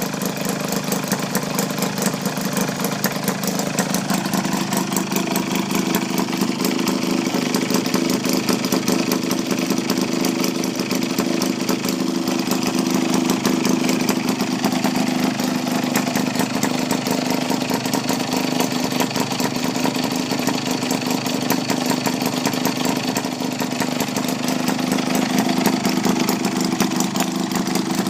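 1937 Maytag twin, a two-cylinder two-stroke washing-machine engine, running steadily at an even speed with a rapid, regular firing beat. It is nice and quiet with an exhaust hose fitted, and it seems to run great.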